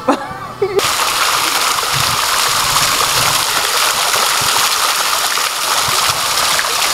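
Water splashing steadily as it pours over the rocks of a stone fountain. It starts abruptly about a second in and stays loud and even.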